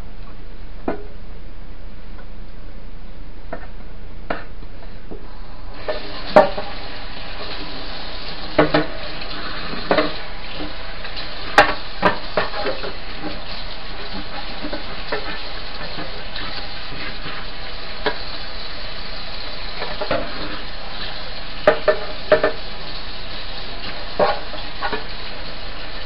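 Kitchen tap water running into a sink while plastic fan parts are scrubbed and rinsed, with scattered knocks and clatters of plastic against the sink. The water comes on stronger about six seconds in.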